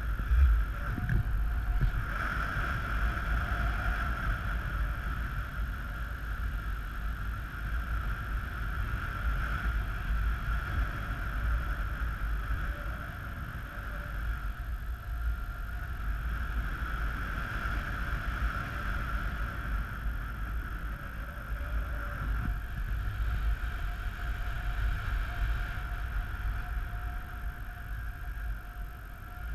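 Wind rushing and buffeting over a camera microphone carried on a paraglider harness in flight: a steady low rumble with a continuous higher hiss of airflow.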